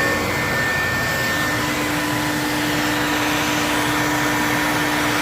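Electrolux vacuum cleaner running steadily: a loud, even motor and airflow rush with a steady whine. Its motor note changes just after the start, then holds.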